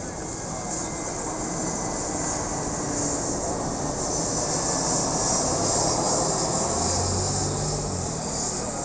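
Airbus A320-216 airliner with CFM56 jet engines passing low overhead on its landing approach: a steady jet rush that swells in loudness to a peak about six seconds in, with a faint whine on top.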